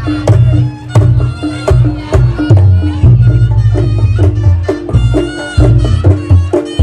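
Reog Ponorogo gamelan music played loudly: heavy drum and gong strokes in a driving rhythm, sharp struck-metal accents, and a reedy, nasal slompret (shawm) melody held over the top.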